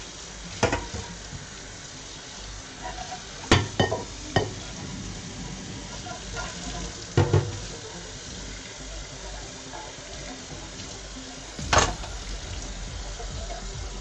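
Tap water running steadily into a stainless steel sink as a pot is scrubbed and rinsed under it. The pot knocks against the sink and tap about six times, with sharp clanks a little over three seconds in, about seven seconds in and near the end.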